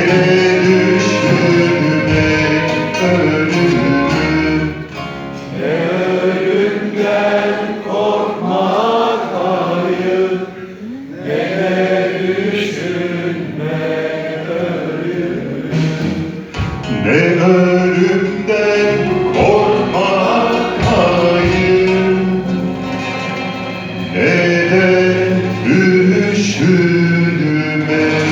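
Live orchestral music with voices singing a Turkish song over the instruments, dipping briefly twice before swelling again.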